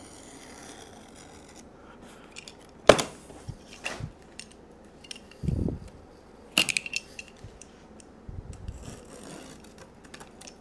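Fiberglass side panel of a battery pack case being pried off along its seam: scattered sharp cracks and knocks, the loudest about three seconds in, with a dull thud and faint scraping between.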